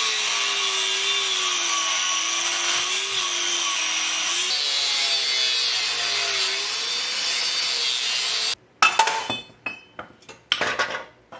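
Angle grinder cutting through a steel bracket, its motor pitch wavering as it comes under load. It stops abruptly near the end, followed by several sharp knocks and clanks of metal being struck.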